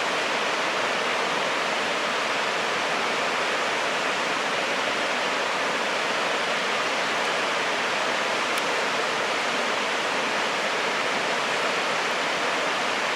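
Steady, unbroken rushing of fast-flowing water from a creek or river below, even in level throughout.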